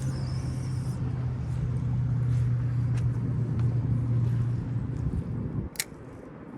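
A motor vehicle's engine running with a steady low hum, which cuts off abruptly about five and a half seconds in, followed by a single sharp click.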